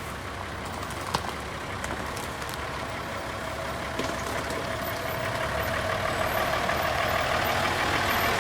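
A heavy vehicle's engine running and growing steadily louder, with two short knocks, about one second and four seconds in.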